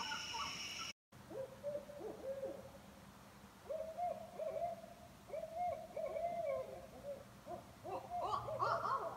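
Owls hooting: a long run of short hoots that each rise and fall in pitch, coming in quick groups, with several calls overlapping and climbing higher near the end.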